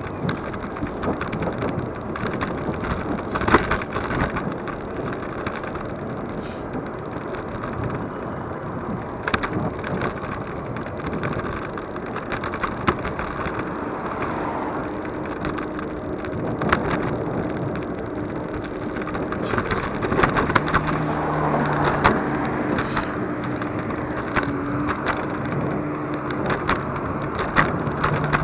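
Superpedestrian electric scooter riding over the road: a continuous rumble of its wheels on the tarmac, with many short knocks and rattles as it hits bumps. A steady low hum joins about halfway through.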